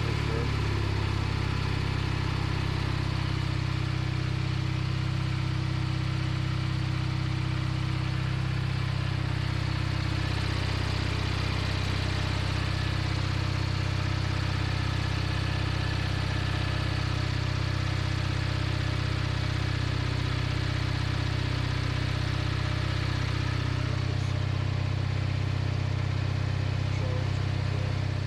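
Kohler 18 hp Magnum engine of a Craftsman riding mower running steadily at idle.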